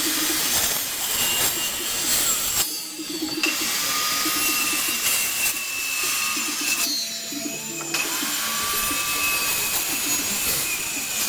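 Electric power tool working wood, running at high speed with a whine, cutting out twice for about a second and spinning back up each time.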